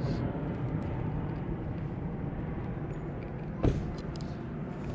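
Steady low rumble of road traffic, with one sharp click about three and a half seconds in.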